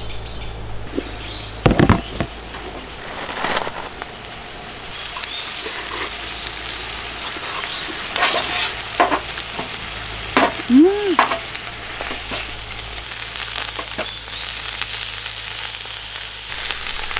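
Sliced duck and chives sizzling in a frying pan on a portable gas burner, the sizzle growing louder about five seconds in. A few sharp clicks of utensils against the pan, and a bird chirping near the start.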